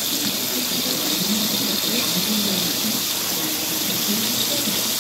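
Hot cooking oil sizzling steadily in a wok as the fried galunggong is lifted out.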